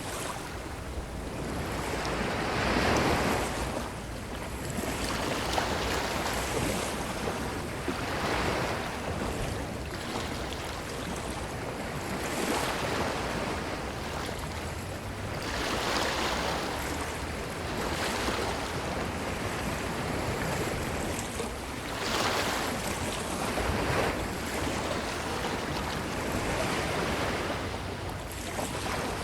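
Ocean waves breaking and washing up a beach, a steady rush that swells with each wave every few seconds, with some wind on the microphone.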